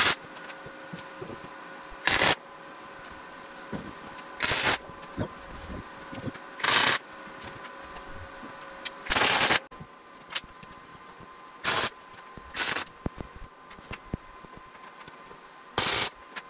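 Short bursts of MIG welding arc from a Best MIG 231 4x4 synergic welder putting down tack and stitch welds. There are about eight crackling bursts, each a fraction of a second to half a second long and a couple of seconds apart, over a steady faint hum.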